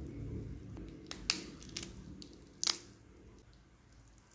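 Cooked ayam pop chicken being torn apart by hand: the meat pulls and squishes, and its bones and joints give a few sharp cracks, about a second in and again, a double crack, a little before three seconds in.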